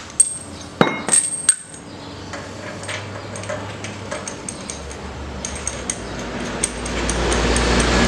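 Hand tools and small metal parts clinking and tapping against a Honda GX160 engine as it is worked on: four sharp metallic clinks in the first two seconds, then lighter scattered ticks. Near the end a steady low hum rises.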